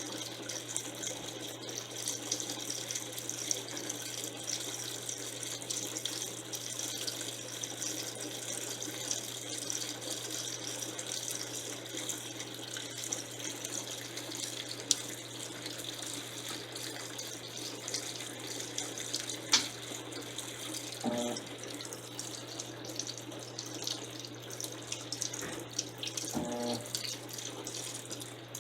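Electrolux LTC10 top-loading washing machine filling its drum with water early in the jeans cycle: a steady rush of running water over a constant low hum.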